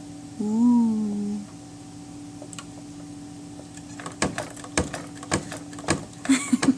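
Cabinet latches and doors clacking as a baby tugs and plays at them: a string of sharp, irregular clicks and knocks starting about four seconds in, over a faint steady hum.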